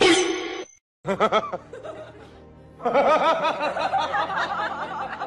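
Repeated bouncing laughter over background music, in a short run about a second in and again from about three seconds in, after a brief falling tone at the start.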